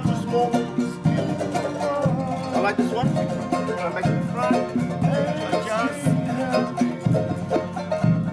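Live Cook Islands band music: a ukulele strummed briskly over a drum beat that lands about once a second.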